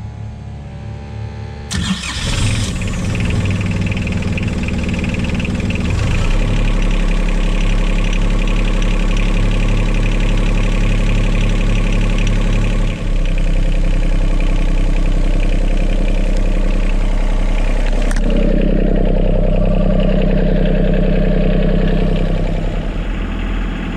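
Yanmar 3YM30AE three-cylinder marine diesel starting and catching about two seconds in, then running steadily at idle, heard close up in the engine compartment. This is its start after the raw water pump impeller has been replaced.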